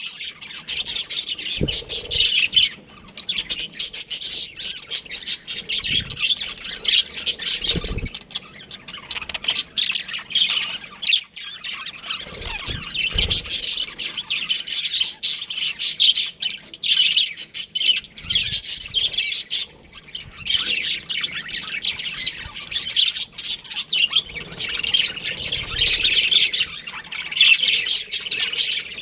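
A flock of budgerigars chattering and chirping nonstop, many overlapping scratchy calls, with a few dull low thumps now and then.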